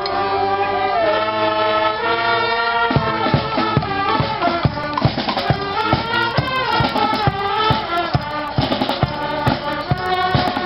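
Brass band music: brass instruments hold chords, and a steady drum beat joins about three seconds in.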